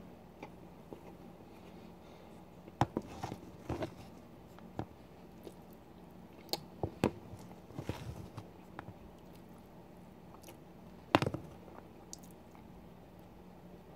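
Chewing and eating sounds of a mouthful of macaroni-and-rice goulash, with scattered sharp clicks and knocks of a metal spoon against a plastic tub. The loudest knock comes about three seconds before the end.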